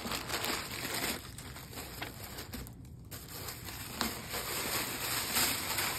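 Plastic packaging bag crinkling and rustling as a replacement IV-arm skin and its vein tubing are pulled out of it, with a brief lull near the middle.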